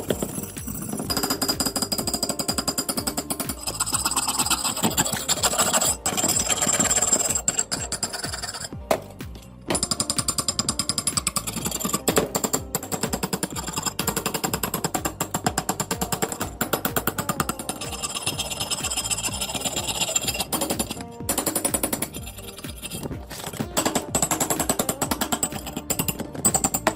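Fast, steady machine-like pounding or rattling, with short breaks about nine and twenty-one seconds in, over background music.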